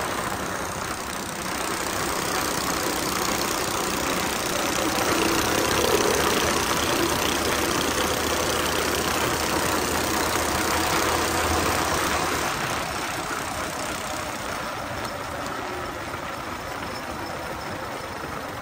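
Coleman BT200X mini bike's small single-cylinder engine running during a ride. It grows louder from about two seconds in and eases off after about twelve seconds.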